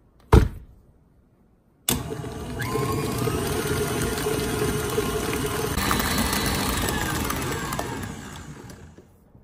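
KitchenAid Artisan stand mixer: a loud clunk as the tilt head comes down, then about a second and a half later the motor starts and runs steadily at medium-high speed, its flat beater whipping cream cheese and butter for icing. Its whine glides up as it speeds up, and it slows and dies away near the end as it is switched off.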